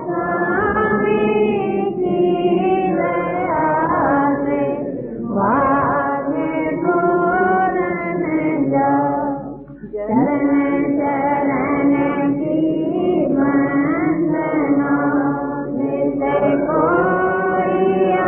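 A voice singing a devotional hymn, with long held and sliding notes and a brief break about ten seconds in.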